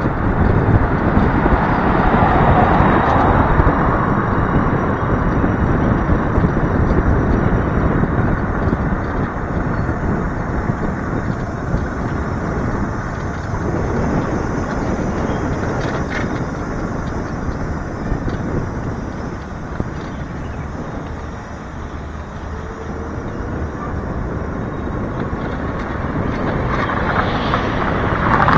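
Riding noise on a small motorbike taxi in motion: wind rushing over the microphone with tyre and road noise, steady with slow swells and dips.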